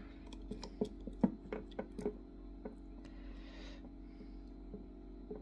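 Small clicks and taps of fingers handling a small circuit board and ribbon cable while fitting them into a GoPro Karma stabilizer's plastic handle, irregular and light, over a steady low hum.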